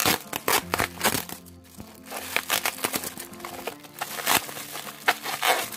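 Plastic bubble wrap crinkling and crackling in quick, irregular bursts as it is pulled open by hand. Background music plays underneath.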